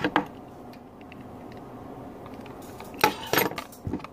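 Objects being handled and set down on a hard surface: a single knock at the start, then a cluster of clattering knocks about three seconds in, as a manual coffee grinder with a glass jar and packaging are moved about.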